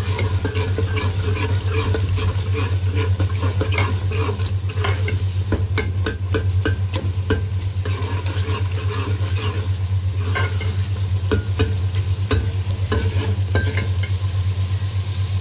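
Steel spoon stirring and scraping a thick masala frying in an aluminium pot, with many sharp clicks of the spoon against the pot. A steady low hum runs underneath.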